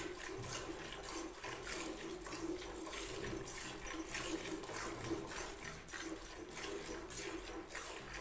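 Cow being milked by hand into a steel bucket: jets of milk squirting into the pail in a steady rhythm, about two strokes a second.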